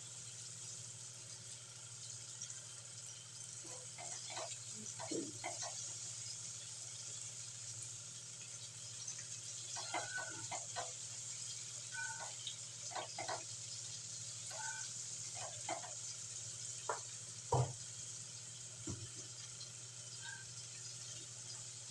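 Battered chicken deep-frying in oil in a wok, a steady sizzle, with a plastic spatula stirring and knocking against the pan in scattered short clacks from about four seconds in, the loudest one near the end.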